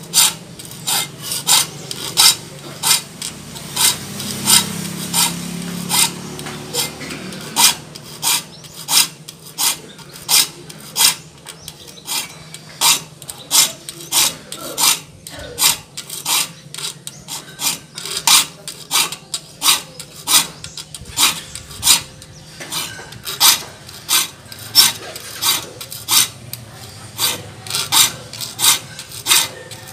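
Hand file rasping across the teeth of a handsaw clamped in a bench vise, in short, even strokes about two a second: the saw teeth being sharpened.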